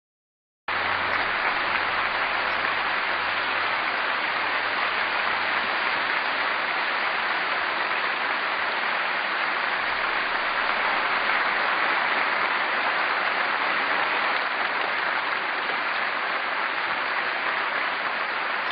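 A large audience in a concert hall applauding steadily, starting suddenly about a second in.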